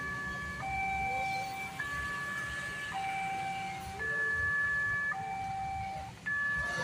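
Railway level-crossing early-warning siren sounding from a small horn loudspeaker: a two-tone hi-lo alarm switching between a high and a low tone about once a second, over a low rumble.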